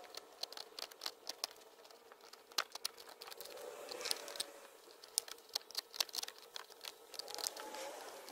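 Hands handling and pressing a small component into a shop vac's opened plastic housing: scattered light clicks, taps and crinkling, over a faint steady hum.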